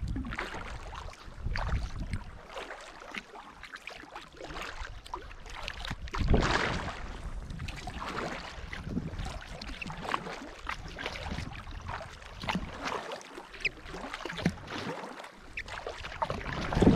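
Water sloshing and splashing around a kayak as it is paddled, rising in irregular swells every few seconds.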